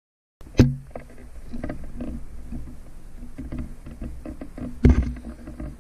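Handling noise from a GoPro being moved around inside a hollow tree cavity: low, uneven rumbling with small scrapes and clicks against rotten wood and debris. There is a sharp knock about half a second in and another near the end. The sound starts abruptly after a moment of dead silence.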